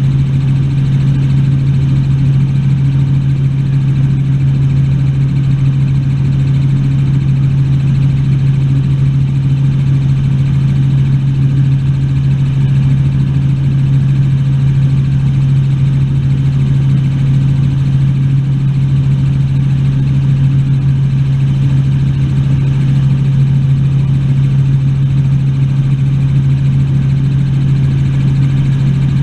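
Helicopter in steady flight: an unchanging engine and rotor drone dominated by one strong low hum.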